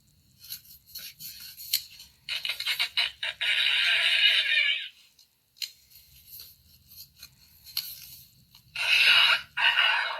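Comic fart sound effects: a long raspy, rapidly pulsing burst about two seconds in, and another starting near the end, with small clicks and scrapes in between.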